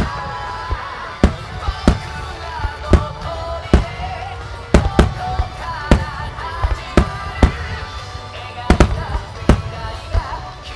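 Fireworks bursting in a rapid, irregular series of sharp bangs, about one to two a second, over music with a wavering melody.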